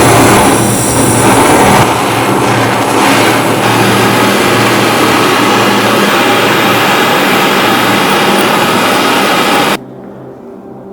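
A motorized workshop tool running steadily with a loud rushing, hissing noise over a low hum, cutting off suddenly near the end.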